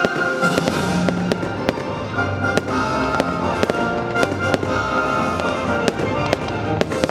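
A fireworks display, with shells bursting in quick, irregular bangs, several a second, over loud music.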